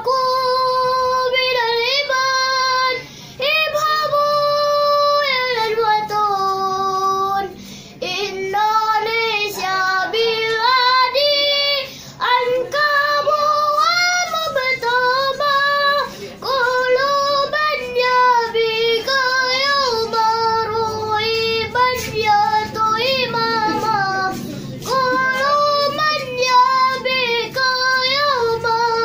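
A young boy singing a sholawat, an Islamic devotional song, solo and unaccompanied: long held notes with melismatic runs and ornaments, broken by short breaths every few seconds.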